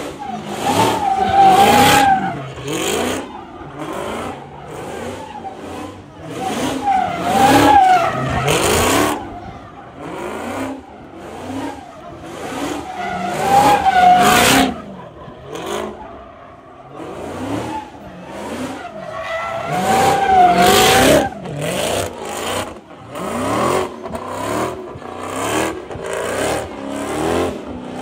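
A car doing donuts, its engine revving hard and its tires squealing in big swells about every six seconds, with a wavering screech at each peak. Near the end come shorter, quicker rev surges, about one a second.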